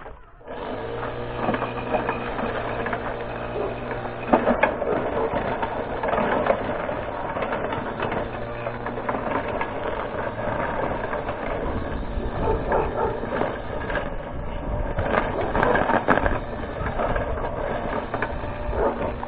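Homemade electric lawn mower's 12–24 V electric motor spinning a nylon trimmer line while cutting thick grass and weeds. A steady mechanical hum starts about half a second in, its low drone changes about four seconds in, and scattered sharp ticks and crackles run through it.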